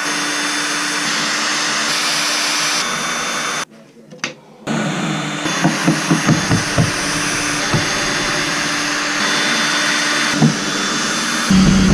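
A high-speed electric tool motor running steadily under load. It cuts out for about a second around four seconds in, then starts again with scattered knocks and rattles of material as it works.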